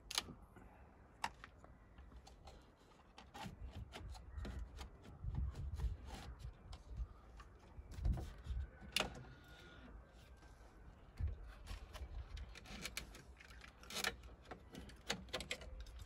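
Irregular sharp plastic clicks and light knocks from hands working the steering column and the under-dash wiring connectors of a Mercedes-Benz W210 while its turn signal switch is removed.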